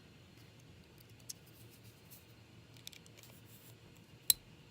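Small tool clicks and taps on an iPhone 4's internals as its battery connector is pried loose, with one sharp click about four seconds in.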